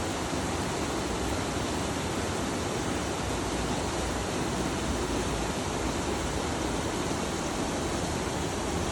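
Steady rush of flowing water, an even, unbroken noise without pauses or changes.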